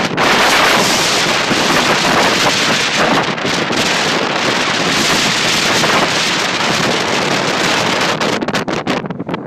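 Strong gusty wind buffeting a phone's microphone, a loud dense rushing noise that drops into short breaks near the end as the gust eases.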